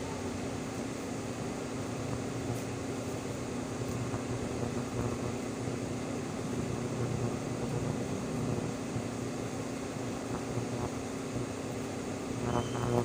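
Steady mechanical hum with a constant low drone. Near the end, a louder sound with several steady pitches begins.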